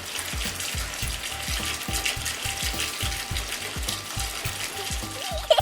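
Toy sink's tap running water onto hands, with a rattling mechanical sound, over background music with a steady beat.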